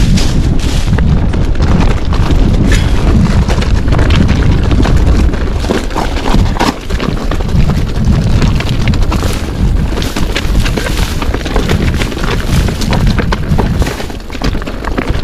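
Commencal Meta TR 29 mountain bike riding fast over rocky trail, with wind buffeting the GoPro microphone as a heavy low rumble and the bike's constant rattles and knocks as the tyres hit rocks.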